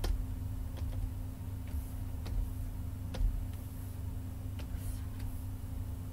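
Computer mouse clicking lightly, about six irregular clicks while deformer points are placed, over a low steady electrical hum.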